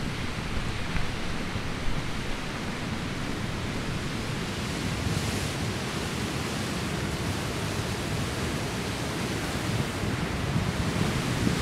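Wind buffeting a camera's microphone, giving a steady rushing noise with an uneven low rumble.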